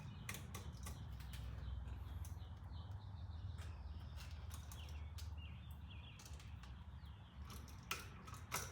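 Faint clicks and scrapes of a hand tool working at an electrical outlet's screws, over a steady low hum, with a few short high chirps; the sharpest clicks come near the end.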